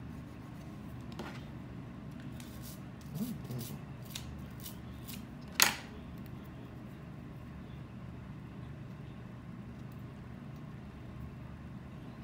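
Light clicks and taps from handling a camera lens and picking up metal tweezers on a desk. Several small clicks come a couple of seconds in, and a sharp click just past five seconds in is the loudest, over a steady low hum.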